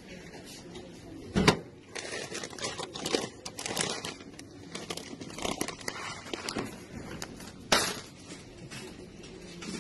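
Plastic pouches of dishwasher tablets crinkling as they are handled and pulled off a shelf. There is a sharp knock about a second and a half in, and another near the end as the pouches land in a wire shopping cart.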